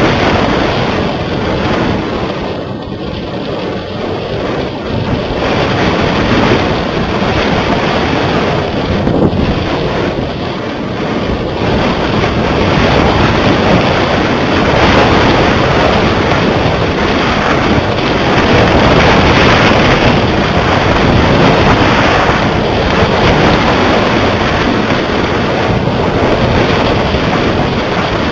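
Loud wind buffeting the microphone of a small camera hung from a flying kite: a steady rushing noise that eases a little early on and swells again later.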